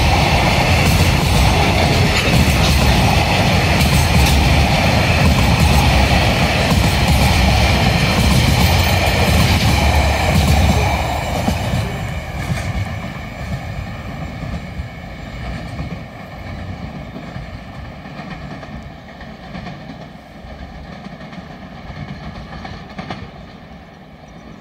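Container wagons of a freight train rolling past on the track, wheels clicking over the rail joints. The sound is loud for about the first eleven seconds, then fades steadily as the end of the train moves away.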